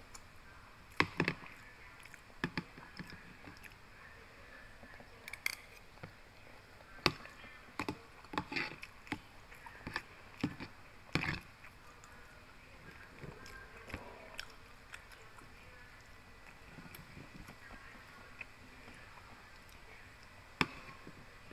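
Metal spoon scraping and clicking against a plastic food container while rice is stirred and scooped, in irregular strokes, most of them in the first half and one more sharp click near the end.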